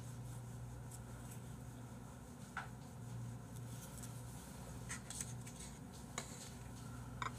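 Quiet room tone with a low steady hum, broken by a few light clicks and taps as chopsticks and plastic food containers are handled on the table.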